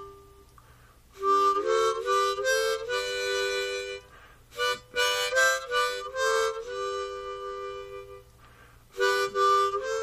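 Harmonica music: chords played in short phrases, with brief pauses between them.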